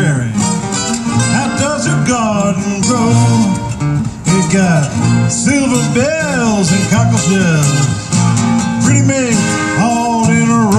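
Acoustic band playing an instrumental break: strummed acoustic guitars under a lead line of bending, sliding notes.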